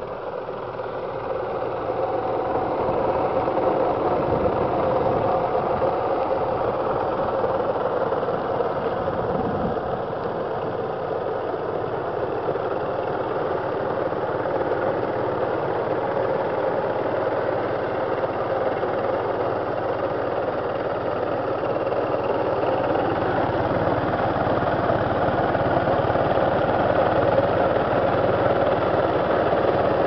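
Railtruck's engine running steadily as the vehicle travels, growing louder over the first few seconds and then holding even.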